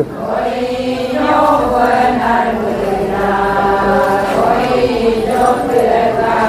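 Voices chanting a melodic, repetitive chant with long held notes that slide up and down in pitch, over a steady low held tone.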